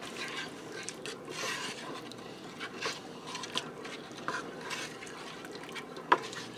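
Wooden spoon stirring a milky soup base in a stainless steel cooker pot: irregular soft swishes and sloshes, with a sharp knock a little before the end.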